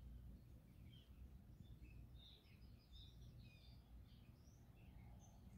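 Near silence: a faint low room rumble with faint, scattered bird chirps.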